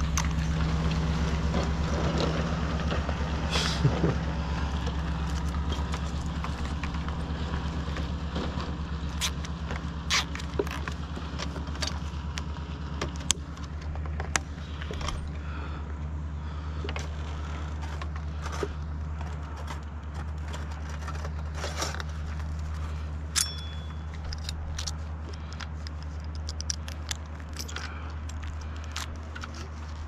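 An engine idling steadily, overlaid by scattered metallic clicks, clinks and scrapes of hardware being handled on the aerial cable strand. The engine hum drops away near the end.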